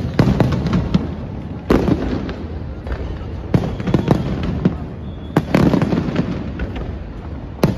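Aerial fireworks shells bursting overhead: a loud bang about every two seconds, with smaller pops and crackling in between.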